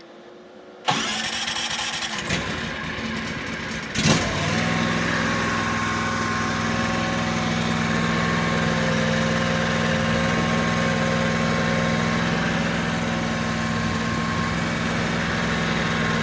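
ATS T460 mini track loader's Zongshen 23-horsepower gas engine cranking on the starter for about three seconds, then catching about four seconds in and running steadily.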